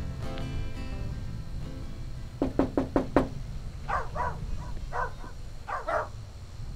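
Four quick knocks on a door, then a dog barking several times in short bursts.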